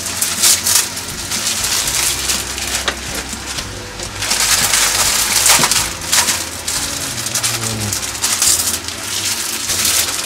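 Vegetables sizzling in a hot frying pan, a steady hiss, with plastic noodle packaging crinkling as it is handled and torn open. The crinkling is loudest about four to six seconds in.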